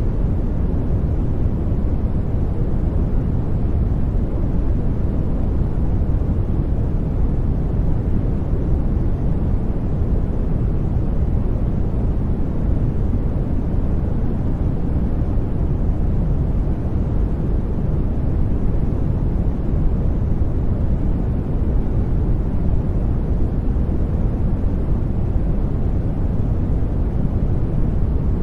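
Steady white noise blended with gentle rain for sleep masking: a deep, even hiss and rumble, heaviest in the bass, with no sudden changes.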